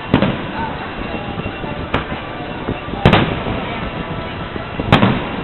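Aerial firework shells bursting: four booms, about one to two seconds apart, the second one weaker than the rest.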